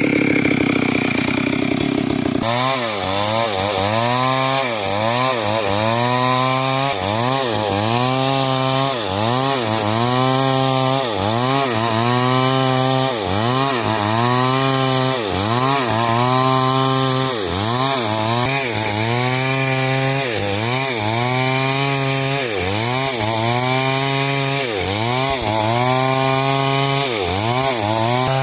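Two-stroke chainsaw cutting through hard coconut wood under load. From about two seconds in, the engine pitch dips and recovers about once a second as the chain bites and frees.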